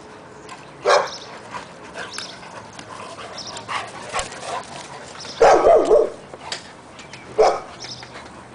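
A bullmastiff and a mastiff play-fighting, giving short barks: one about a second in, a louder run of barks a little past halfway, and another about two seconds later.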